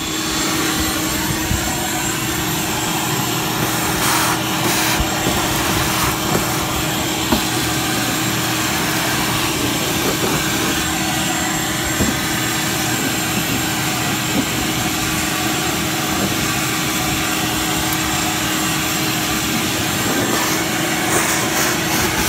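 Ridgid portable wet/dry shop vacuum running steadily, a loud rush of air with a steady hum through it, as its hose sucks dust and debris off a freshly sanded fiberglass boat hull.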